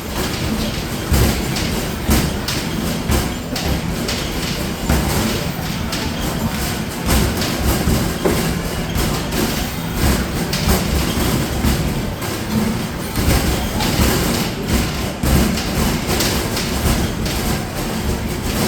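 Arcade basketball machine in play: basketballs thudding rapidly and without pause against the backboard and rim and rumbling back down the return ramp, with the machine's noise underneath.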